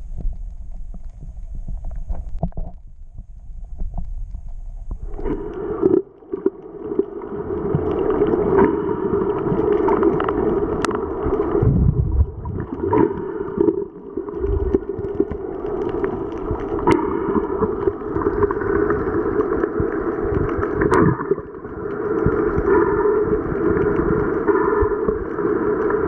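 Muffled underwater sound picked up by a camera held under the sea: a low water rumble for the first few seconds, then from about five seconds a louder, steady churning noise with a few faint clicks.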